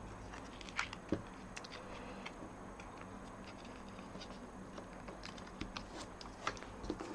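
Faint, scattered light taps and clicks of small cardstock pieces being handled and repositioned on a work surface, with a few more in quick succession near the end.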